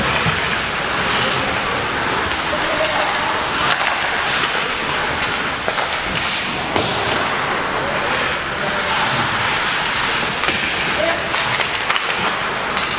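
Ice hockey play: skate blades scraping and carving the ice under a steady hiss, with frequent sharp clacks of sticks and puck.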